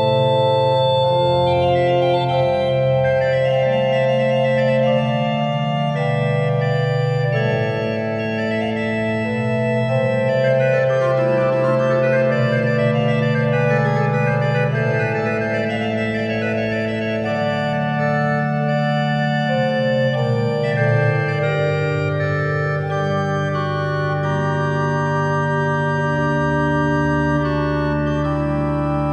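A five-stop Taylor and Boody portative chamber organ plays a Spanish tiento, with held chords underneath a solo treble line that breaks into fast running passagework in the middle. A deep bass note comes in near the end.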